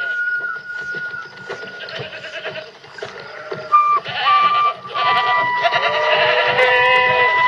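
A herd of goats bleating, several calls overlapping at once toward the end.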